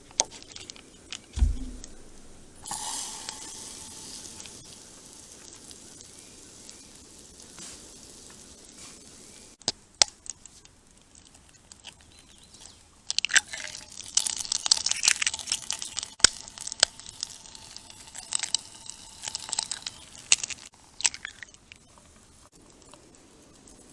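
Eggs frying in a hot skillet: a sudden sizzle starts about three seconds in and keeps going, growing louder and crackling through the middle, with a few sharp clicks of a utensil against the pan.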